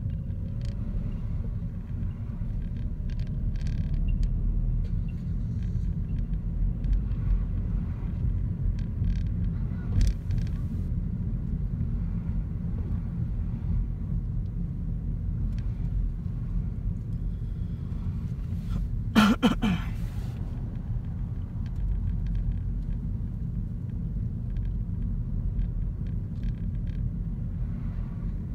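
Steady low rumble of a car's engine and tyres heard from inside the cabin while driving, with scattered faint ticks, a knock about ten seconds in, and a short, loud pitched sound about two-thirds of the way through.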